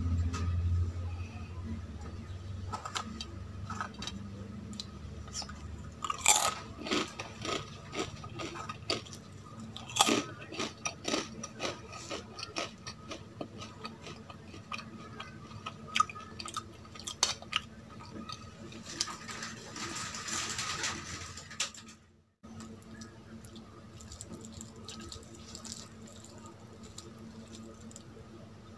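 Close-miked eating-show sounds of fingers working rice and chicken curry on a steel plate: wet squishing with many sharp crackles and clicks, the loudest a few seconds in. The sound cuts out for an instant about two-thirds of the way through.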